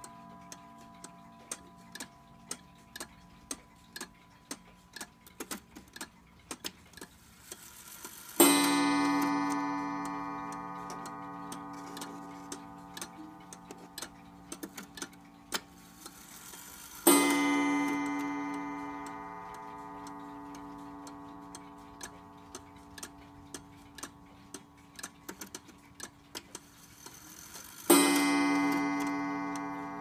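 A Korean 31-day pendulum clock ticking, with three single strikes on its gong, each ringing out and slowly fading over several seconds. The minute hand is being turned by hand, setting off a strike each time it reaches the hour or half hour.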